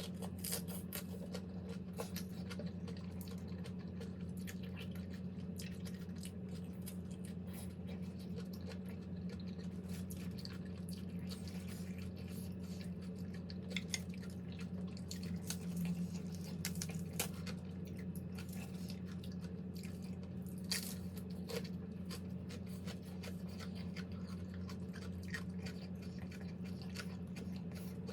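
Close-up eating sounds: wet chewing with scattered small clicks and taps, over a steady low hum.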